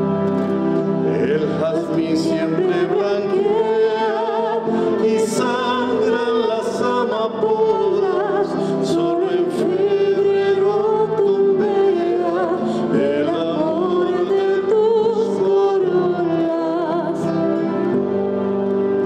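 A man singing a slow song with a wavering, held voice, accompanied by a classical guitar.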